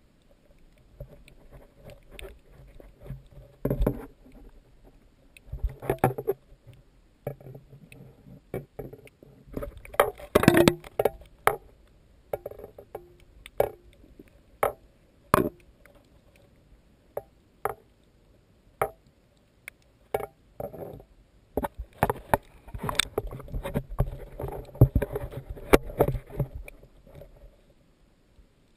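Muffled water movement with irregular sharp clicks and knocks, picked up underwater through a GoPro Hero2's sealed dive housing as it is handled and moved. The knocks come thickest about a third of the way in and again in a longer stretch near the end.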